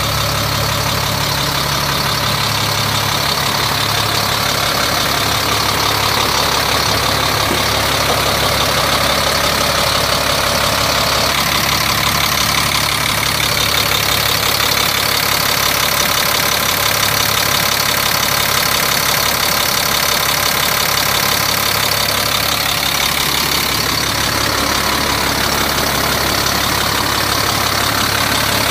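A 1996 Freightliner FL70's Caterpillar 3126 7.2 L inline-six turbo diesel idling steadily.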